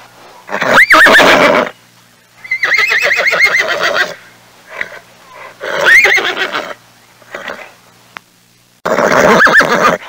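Horse neighing: four loud whinnies in turn, the second a long, quavering one.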